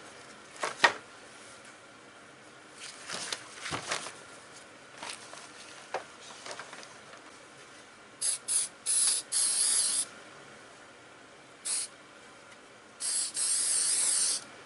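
Aerosol can of sandable primer spraying in hissing bursts: a few short squirts about eight seconds in, another a little later, then a longer steady spray near the end. Before that there are only a few faint knocks and rubs from handling the part.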